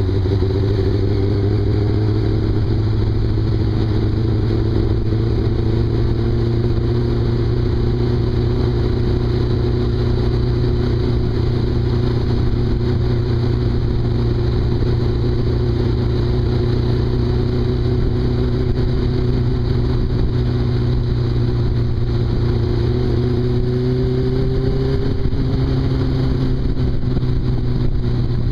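Motorcycle engine at a steady cruise: a continuous drone whose pitch drifts slowly, rising a little and then dropping near the end as the throttle eases.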